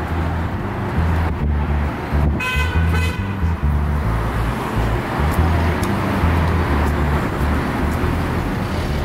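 City street traffic noise, with a car horn sounding once for about a second, a little over two seconds in.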